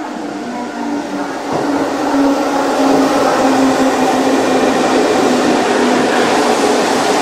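Keihan electric train running into the station, its noise swelling over the first two seconds to a loud, steady rush with a low hum.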